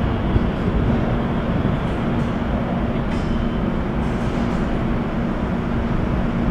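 R160 subway train pulling away down the tunnel: a steady rumble with a low hum.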